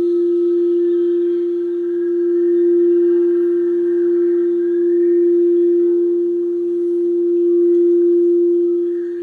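Quartz crystal singing bowl tuned to F, sounding one steady sustained tone with faint higher overtones. It swells and eases gently every few seconds.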